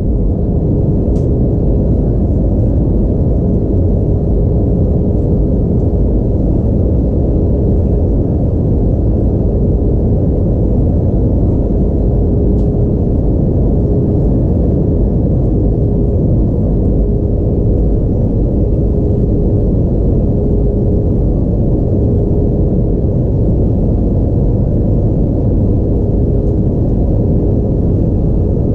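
Inside the cabin of an Airbus A320-232 in descent: the steady, loud rush of airflow and the IAE V2500 turbofans, with a faint constant hum running through it.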